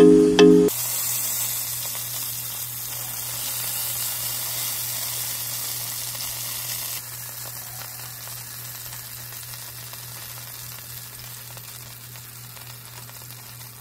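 Freshly seared beef roast sizzling on a wire rack just out of a 500-degree oven, a steady hiss that softens about halfway through, over a steady low hum.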